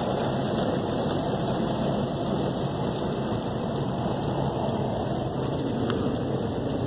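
Water from an automatic car wash spraying onto a car, heard from inside the cabin as a steady, rain-like hiss.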